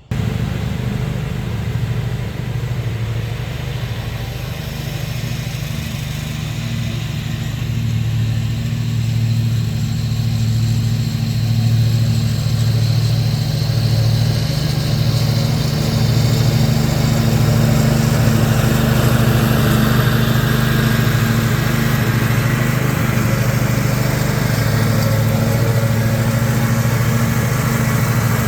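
Briggs & Stratton Intek V-twin engine on a zero-turn mower running steadily, getting slightly louder about halfway through, on a test run after its failed oil pan gasket was replaced.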